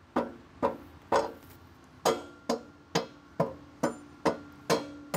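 A hammer tapping the rear axle of a motorcycle through the wheel hub and spacers: about ten steady strikes, roughly two a second, each with a brief metallic ring.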